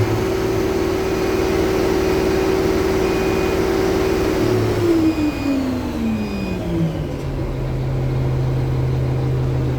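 A K-700 tractor's MAN diesel engine held at high revs, then falling back to a steady idle about seven seconds in. Faint short high beeps sound while it is revved: the tachometer's over-2100 rpm warning.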